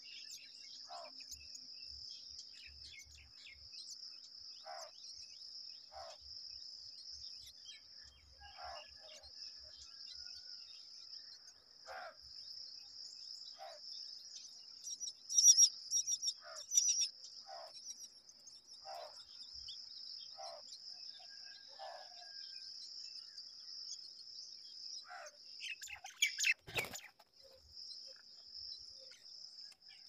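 Steady high insect drone with short bird calls every second or two. About 15 seconds in comes a burst of loud, shrill calls, myna chicks begging as the adult bends into the nest to feed them. A brief thump sounds near the end.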